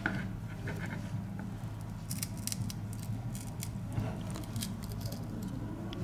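Plastic opening picks prying along the seam of a Samsung Galaxy A3 phone, giving a scattered run of small plastic clicks and snaps, thickest in the middle few seconds, as the housing is worked apart.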